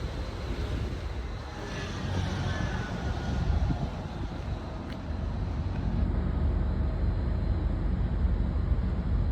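Steady low rumble of urban outdoor background noise, with a faint sliding tone about two seconds in.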